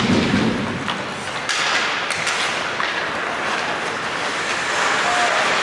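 Ice hockey play on an indoor rink: skates scraping and carving on the ice in a steady hiss, with a few sharp clacks of sticks and puck about one and a half to two and a half seconds in.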